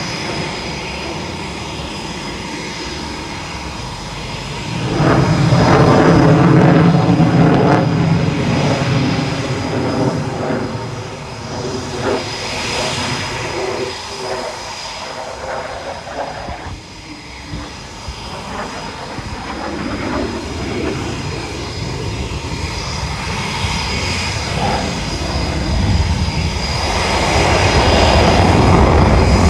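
Eurofighter Typhoon's twin EJ200 turbofans running on the ground, a steady jet engine noise with a high thin whine. It swells louder about five seconds in and again near the end.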